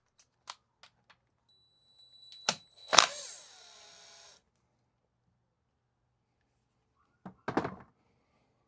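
Metal-on-metal clicks and clanks from a 17 mm wrench working a fitting off the back of an air compressor's pressure regulator. About three seconds in, one sharp clank rings on for over a second, and a few duller knocks follow near the end.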